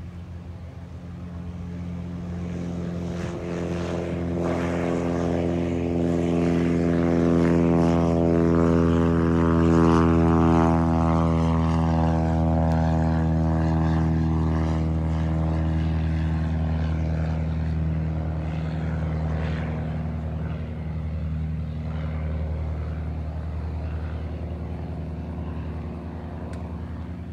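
Single-engine propeller banner-tow plane flying past, its engine running steadily at high power. The drone builds to its loudest about ten seconds in, dips slightly in pitch, then slowly fades as the plane draws away.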